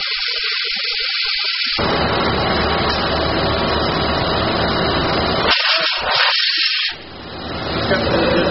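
OMAX abrasive waterjet cutting a plate straight down: a loud, continuous hiss of the high-pressure jet. About two seconds in the noise turns fuller and deeper. It thins and dips briefly near seven seconds, then comes back full with a steady hum under it.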